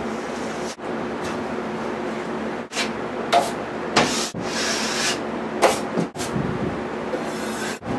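Drywall taping knife scraping joint compound along a metal corner bead: a few short scrapes and sharp clicks over a steady background hum.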